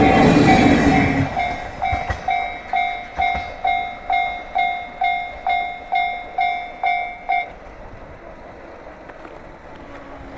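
The last of a train rumbling over a level crossing, fading about a second in, while the crossing's electronic warning bell rings in a steady ding about twice a second. The bell stops about seven and a half seconds in, once the train has cleared the crossing.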